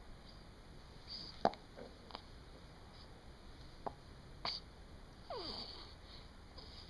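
Hiccups: about four short, sharp hiccups at irregular intervals, the loudest about a second and a half in. A little after five seconds comes a brief sound falling in pitch.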